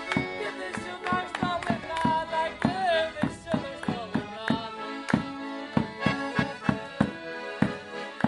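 Accordions playing a lively traditional Madeiran folk dance tune over a steady beat of sharp strokes, about two to three a second.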